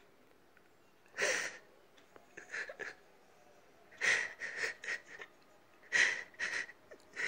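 A man sobbing without words: gasping, wheezing breaths that come in short ragged bursts, several in quick succession around the middle and again near the end.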